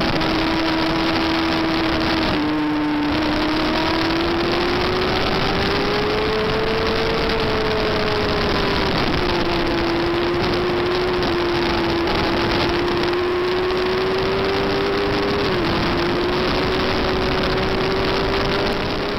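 Yamaha FZR400 inline-four engine running hard at high revs, heard onboard with wind rushing over the microphone. Its pitch slowly climbs and falls through the corners, with a brief break about two seconds in and a sudden drop in pitch about three quarters of the way through, at gear changes.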